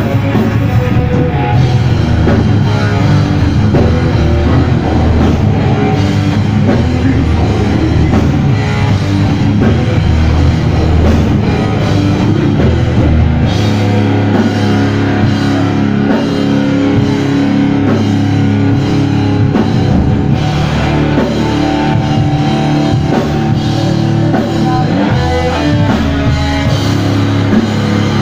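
Heavy metal band playing live: electric guitars and a drum kit, loud and unbroken.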